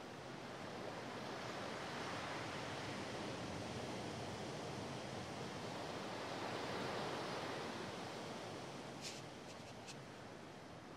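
Sea surf: a steady hiss of waves that swells over several seconds and then eases off, with a few faint clicks near the end.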